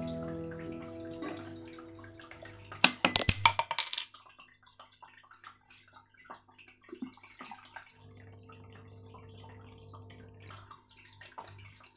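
Faint crackling sizzle from chicken-feet sisig on a hot cast-iron sizzling plate, with a short burst of loud crackles about three seconds in. Guitar music fades out at the start.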